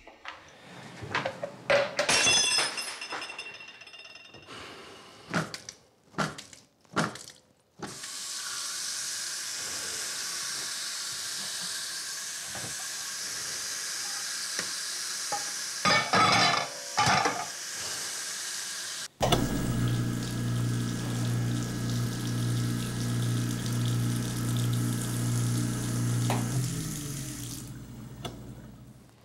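Clattering knocks at a kitchen sink, then a tap running steadily with more clatter. About two-thirds of the way in, a motor starts suddenly with a steady low hum over the running water, then drops in pitch and winds down near the end.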